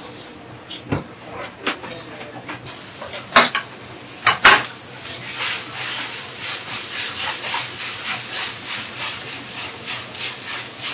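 Kitchen work: a few sharp clicks and clatters of utensils. Then, from about halfway, an even run of scraping strokes, about two to three a second.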